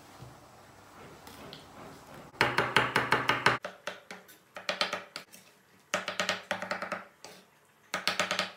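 Chef's knife rapidly chopping soft roasted eggplant on a wooden cutting board: quick runs of sharp knocks, several a second, in four bursts with short pauses between, starting a couple of seconds in after a quiet stretch.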